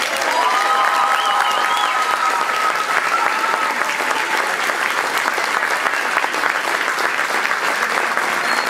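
Theatre audience applauding steadily, a dense crackle of clapping hands.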